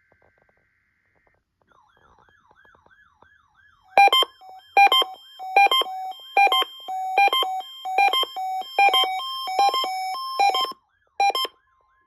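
Weather radio receivers alerting to a NOAA Weather Radio required weekly test. A faint warbling tone starts about two seconds in. From about four seconds in, loud electronic alert beeps repeat roughly every 0.8 s, with a short gap before a last pair near the end.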